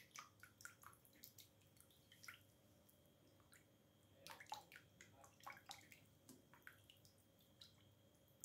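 Faint, irregular little splashes and drips of water as fingers dabble in a pot of water.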